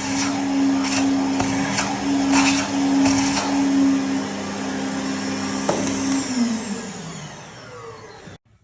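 Hoover TCP2010020 2000 W vacuum cleaner running with a steady motor whine and airflow hiss, with uneven surges in the hiss. About six seconds in it clicks off and the motor winds down with a falling pitch.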